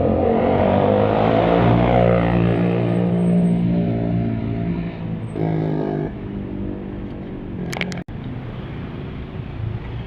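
Road traffic: a motor vehicle's engine running close by, loudest in the first few seconds and easing off after about six seconds.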